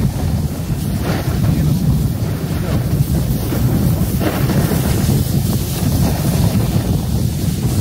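Steady wind rumble buffeting a phone's microphone while descending a ski slope at speed.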